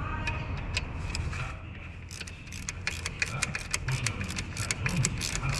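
Toyota Wish engine bay: a steady low running rumble with a thin high whine, and rapid, irregular metallic clicks that grow busier after about two seconds.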